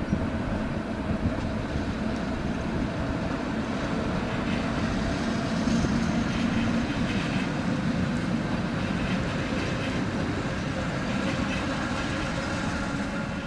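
Electric multiple-unit passenger train passing, its wheels rumbling over the tracks and points with a steady hum underneath. It is loudest about halfway through and eases off toward the end as it goes by.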